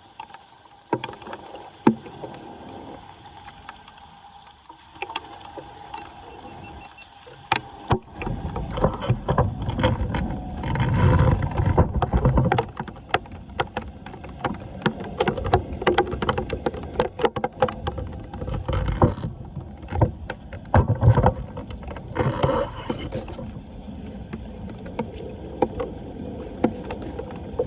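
Floodwater splashing and sloshing over a street drain, with many scattered knocks. It is quieter at first and grows louder and busier about eight seconds in, with two stronger surges of splashing.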